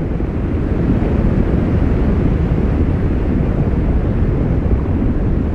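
Deep, continuous rumble of a glacier calving, with masses of ice collapsing and crashing. It builds over the first second, then holds steady.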